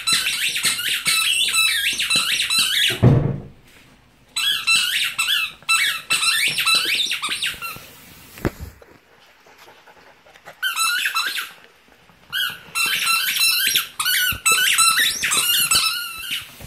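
A dog chewing a squeaky toy, setting off rapid runs of squeaks in four bursts with short pauses between. A low thump about three seconds in.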